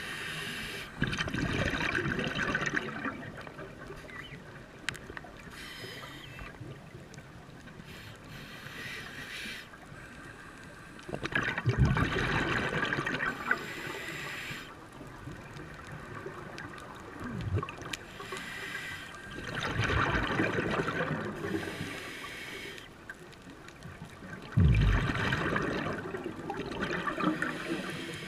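Scuba diver's exhaled breath bubbling out of the regulator, heard underwater: loud gurgling bursts of bubbles about four times, several seconds apart, with quieter stretches between.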